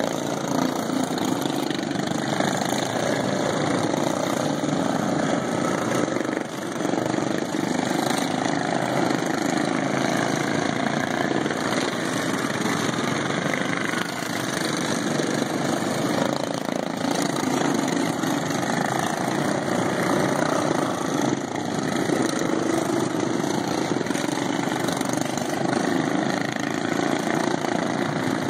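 Several racing lawn mowers' factory-stock single-cylinder engines running at race speed together, a steady mixed engine drone that swells a little now and then as mowers come closer.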